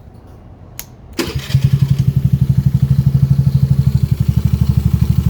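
A click, then a little over a second in the Honda Navi scooter's single-cylinder four-stroke engine starts and settles into an idle, with a steady, even pulse of about a dozen beats a second.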